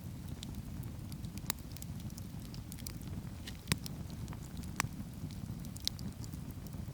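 Wood campfire burning with a steady low rumble, broken by a few sharp pops and crackles from the firewood, the loudest just past halfway.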